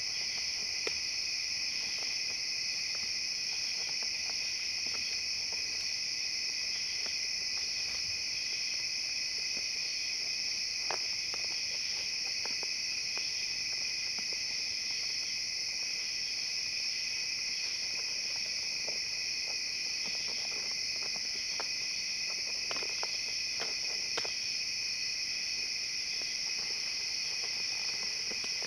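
Steady chorus of night insects, high and unbroken, with scattered light clicks and scrapes from raccoons' claws on a vinyl couch as they clamber and rummage over it.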